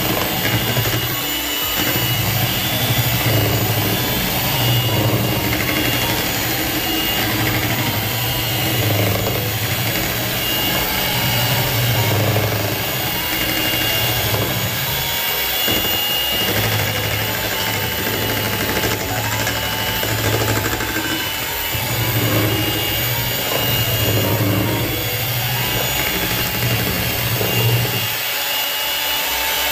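Electric hand mixer running, its beaters whirring through cake batter in a stainless steel bowl.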